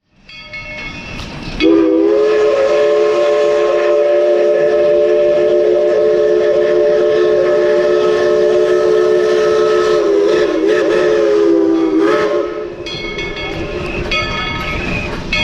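Steam locomotive's chime whistle blowing one long, loud blast of about ten seconds, a steady chord of several notes that wavers and dips in pitch as it shuts off. After it, short high-pitched tones come and go over the rolling train.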